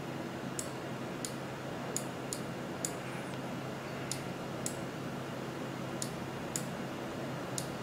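Computer mouse clicking about a dozen times at an irregular pace, over a faint steady hum.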